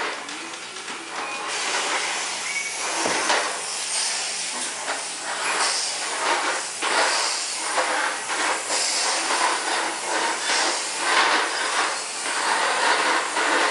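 Vacuum cleaner running with a steady hissing rush of air, its noise swelling and dipping every second or so as it works over the floor, with one sharp knock about three seconds in.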